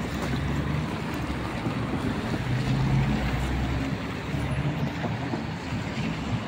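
Wind buffeting the microphone over city street traffic noise with a low engine hum, strongest about halfway through, as a tram comes up along the tracks.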